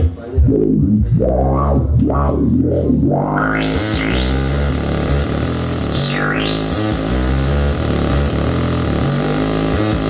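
Improvised electronic music on the RITM-2: a loud, distorted low drone with a resonant sweep that rises sharply about four seconds in, dips back down around six seconds and climbs again, leaving a bright hiss over the drone.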